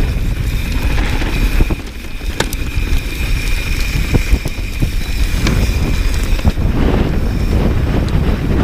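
Wind buffeting the microphone of a bike-mounted camera over the rumble of a mountain bike rolling fast down a dirt singletrack. A few sharp clicks cut through, about a third and halfway in.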